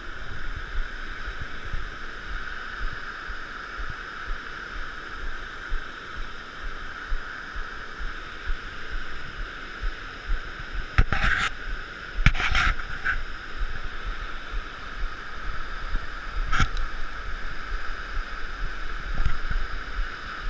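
Steady rush of water, with wind buffeting the microphone and a few short sharp clatters about halfway through.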